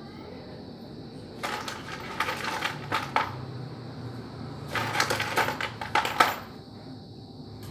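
Screws being driven into a ceiling board with a screwdriver: two bursts of rapid clattering clicks, each lasting a second or two, with a pause between them.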